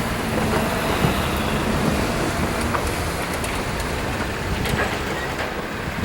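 Container freight train of Koki flat wagons rolling in, a steady rumble with a few scattered sharp wheel clicks.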